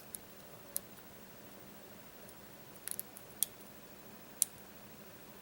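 Small sharp metallic clicks and taps of a lock pick and tension wrench working a four-pin Master Lock padlock. About eight scattered clicks, the loudest near the end.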